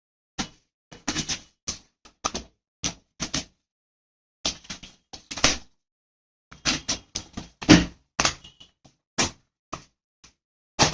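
Cardboard box and packaging being handled and opened: a run of short, irregular thuds, taps and scrapes, each separated by silence.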